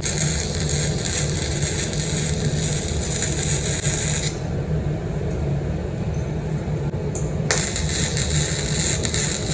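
Electric welding arc crackling and hissing as tack welds are laid, run without shielding gas. The arc breaks off about four seconds in and strikes again a few seconds later.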